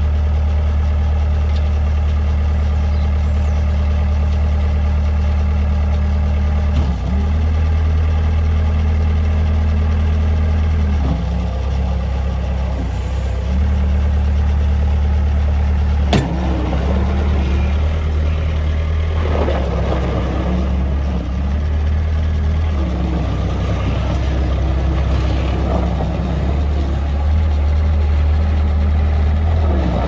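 Bobcat S150 skid steer's 46 hp Kubota diesel engine running, its pitch stepping up and down several times as the engine speed changes while the loader works its bucket and turns. A single sharp click comes about halfway through, and the sound grows rougher in the second half.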